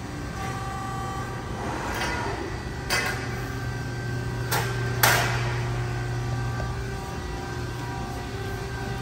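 Ermaksan Power Bend Falcon 242-ton CNC hydraulic press brake running with a steady low hum, broken by a few sharp knocks, the loudest about five seconds in with a ringing tail as the machine works through a bend.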